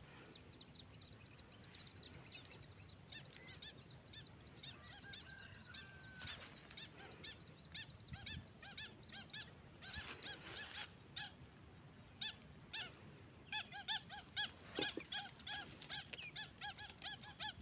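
Birds calling around a fish pond: many short, repeated chirping calls, faint at first and growing busier in the second half.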